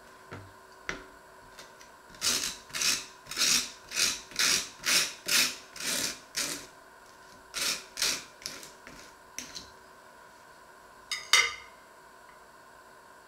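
Table knife scraping butter across slices of toasted bread on a wooden board: about a dozen rasping strokes at roughly two a second, a pause, a few lighter scrapes, then a short clatter near the end as the knife is set down on a porcelain plate.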